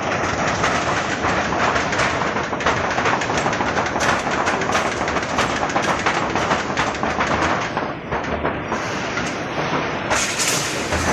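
Roll-forming machine for V-shaped ridge caps running, galvalume steel sheet feeding through its rollers with a steady, dense rattle of rapid clicks.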